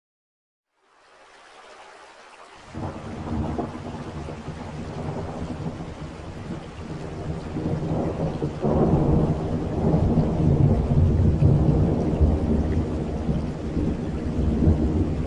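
Thunderstorm: rain hiss fading in about a second in, then low rolling thunder from about two and a half seconds, swelling louder toward the middle.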